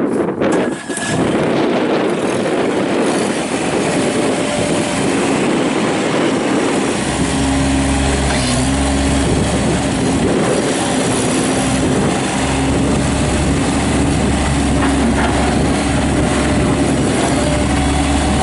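Kubota D902 three-cylinder diesel of a Bobcat MT55 mini track loader, just started and running. About seven seconds in, a deeper, louder low rumble sets in and holds.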